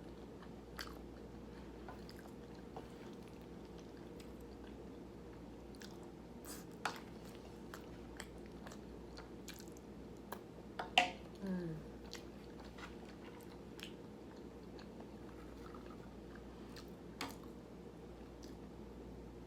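Faint mouth sounds of a person eating: quiet chewing with scattered small clicks over a steady low room hum. About eleven seconds in there is one short vocal sound that falls in pitch, the loudest thing in the stretch.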